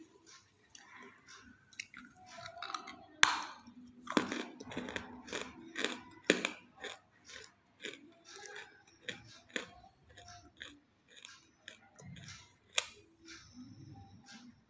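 Close-up crunching and chewing of half-roasted clay pot pieces: irregular sharp crunches with softer grinding chews between them.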